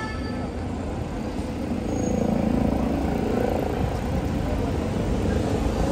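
A motor vehicle engine running in a steady low rumble that swells about two seconds in, then settles.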